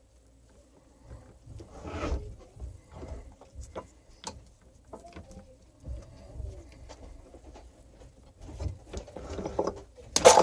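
Small clicks and rustles of hands working wires, plastic wire nuts and a roll of electrical tape inside an opened hammer drill, with a broader rustle about two seconds in and a louder burst of handling noise near the end.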